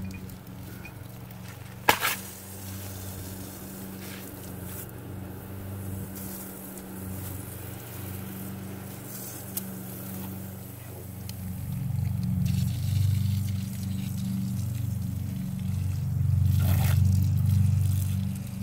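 Outdoor wall spigot turned on to fill an expandable garden hose: water rushing through the tap and hose as a low, uneven rumble that grows louder from about twelve seconds in. There is a sharp click from the tap and hose fitting about two seconds in.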